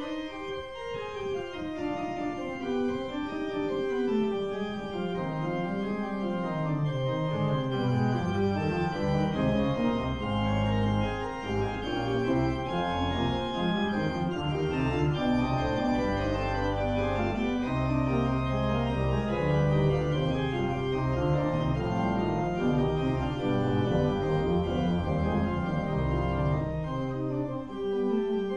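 Organ music: a slow melody over held chords, with deep bass notes coming in about ten seconds in and dropping away near the end.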